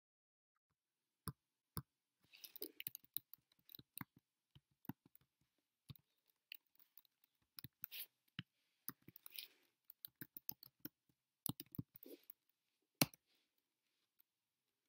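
Computer keyboard and mouse clicking irregularly: single clicks and quick runs of keystrokes as a web address is typed in and a page is opened.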